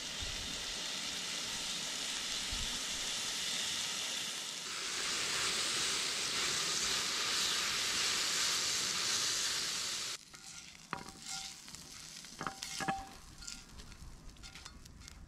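Food sizzling and frying in a hot pan, a dense steady hiss. About ten seconds in it cuts off abruptly, leaving a few light clinks and taps.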